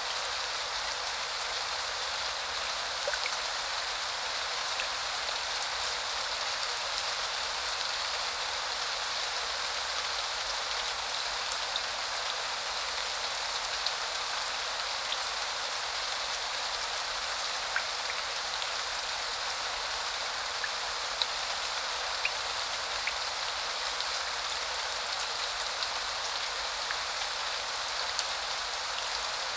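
Steady rainfall as an even hiss, with scattered individual drops ticking sharply now and then.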